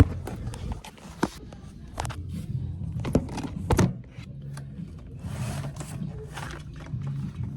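Clicks and knocks of things being handled, a few of them sharp, over a steady low hum of store background sound.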